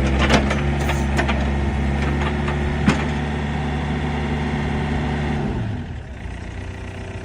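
Yanmar VIO55 mini excavator's diesel engine running steadily, then throttling down to a lower idle about five and a half seconds in. A few sharp metallic clicks and knocks come in the first three seconds.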